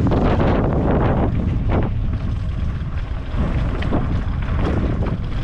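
Heavy wind buffeting the microphone: a loud, dense low rumble with gusty swells.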